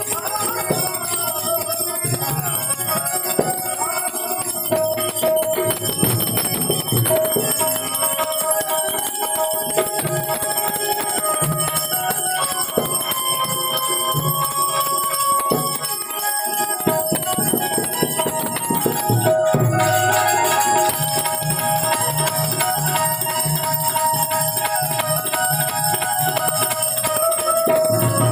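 Harmonium playing a sustained devotional melody, with small metal percussion ringing steadily alongside it.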